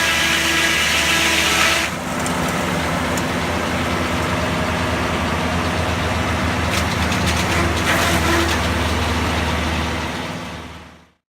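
Engine-driven sawmill running: a steady engine hum under the loud rasp of the saw in a cut. The cutting noise stops abruptly about two seconds in, leaving the engine and saw running free, and the sound fades out near the end.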